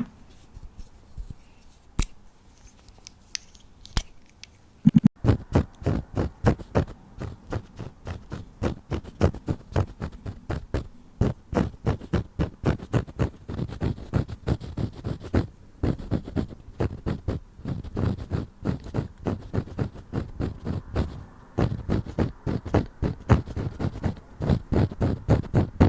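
Rapid scratchy strokes of an eyebrow pencil worked close to the microphone, several a second, starting about five seconds in after a few soft clicks.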